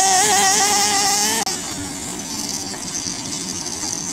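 Redcat Hurricane XTR nitro buggy's small glow engine running at high revs with a high buzzing pitch that wavers slightly, cutting off abruptly about a second and a half in, then a quieter, rougher running noise.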